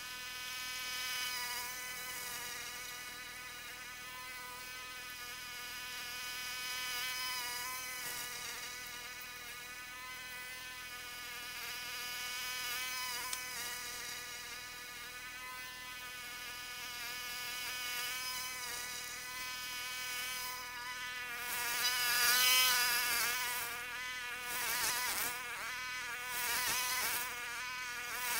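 Walk-behind lawn mower running, sped up about tenfold so that it comes out as a high, insect-like buzz; the pitch wavers and the sound grows louder in the last third.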